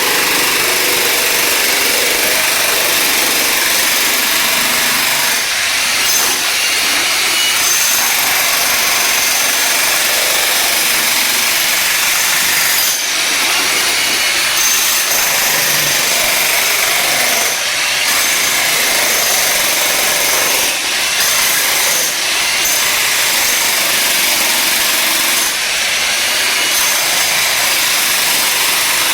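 Electric jackhammer running almost without a break, chiselling up glued-down flooring, with a few brief letups.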